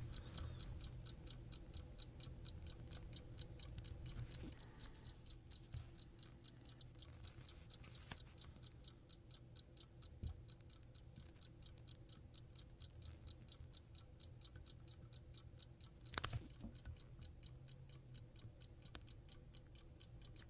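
An antique fusee pocket watch movement ticking steadily at about five beats a second, its balance running. A single sharper click or tap stands out about sixteen seconds in.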